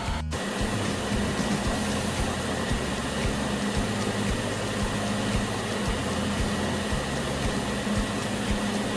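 CNC mill machining 6061 aluminum: a steady spindle hum and whine over a rushing hiss, unchanging after a brief drop-out right at the start.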